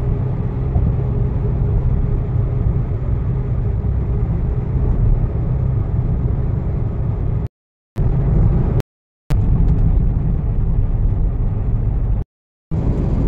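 Steady road and engine noise inside a moving car's cabin on an expressway. The sound cuts out to dead silence three times, briefly, in the second half.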